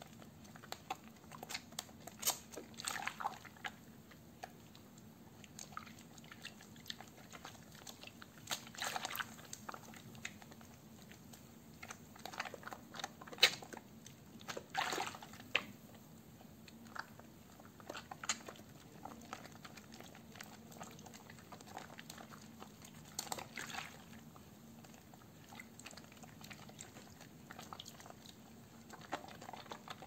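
Hands squeezing and rubbing a soaked, softened sliver of soap in a basin of soapy water, making wet squishing and lathering sounds in irregular bursts with small splashes.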